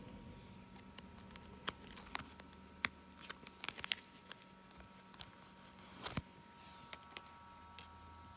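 Plastic binder pages and card sleeves of a Pokémon card binder being handled and turned: a scatter of sharp plastic clicks and crinkles, thickest around the middle, with a double click a little past halfway.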